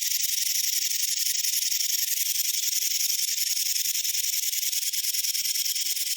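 Rattlesnake rattling its tail: a steady, continuous high-pitched buzz with no pauses, the warning sound of a snake ready to strike.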